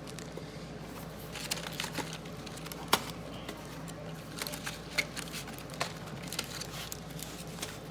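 Plastic packaging crinkling and small scattered clicks as kit items are handled and unwrapped, over a steady low hum.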